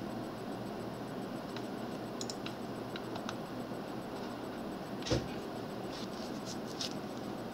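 Steady background hiss and low hum of a quiet room, with a few faint light clicks and one louder knock about five seconds in.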